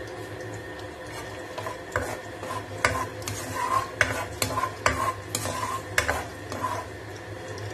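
A spatula stirring chopped garlic in a little oil in a nonstick wok: an irregular run of taps and scrapes against the pan, some with a short squeak, from about two seconds in until near the end, over a steady background hum.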